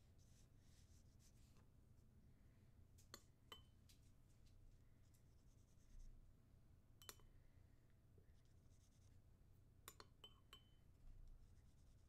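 Faint scratching of a pencil tip drawing wet coffee paint across paper, broken by a handful of light clicks, some with a brief high ring.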